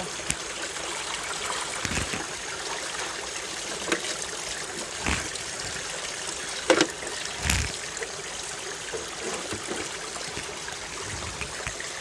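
Spring water trickling and running steadily where it comes out of the ground into a pipe, with a few short splashes and knocks as hands work at the pipe in the water.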